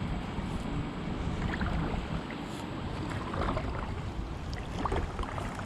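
Wind rumbling on the microphone over water moving around a kayak, with scattered small splashes and drips.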